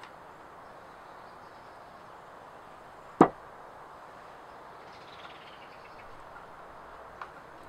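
A single sharp knock about three seconds in, a hard object struck or set down on wood while bark is being worked, over a faint steady background hiss.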